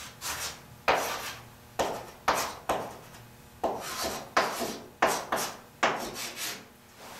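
Chalk writing on a chalkboard: a run of about a dozen short scraping strokes, irregularly spaced, as characters are written.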